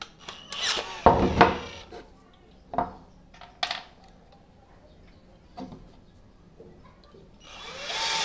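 An Ingco cordless drill-driver backs screws out of a wooden block. Loose screws click and clatter onto plywood around the middle, and near the end the drill motor whirs up with a wavering pitch as the bit drives the next screw out.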